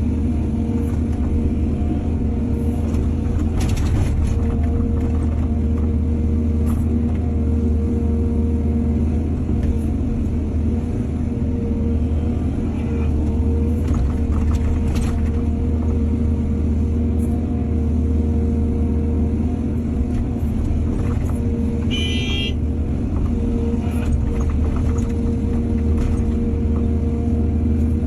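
Heavy diesel excavator engine running steadily with a low rumble and a steady hum. A few short knocks come through, and there is a brief high squeal about two-thirds of the way through.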